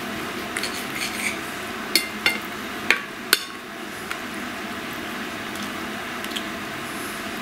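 Cutlery knocking and clinking on a plate while eating meat: a handful of sharp clicks, the loudest coming between two and three and a half seconds in, over a steady background hiss.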